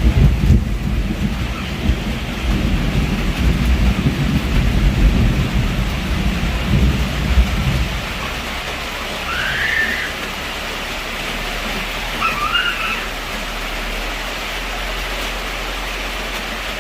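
Heavy rain falling steadily, with a low rumble of thunder that dies away about halfway through. Two short high calls sound over the rain a little later.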